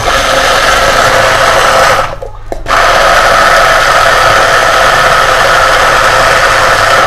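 Hand-held immersion blender running in a plastic beaker, blending a lemon and honey mixture; it cuts out briefly about two seconds in and then runs again.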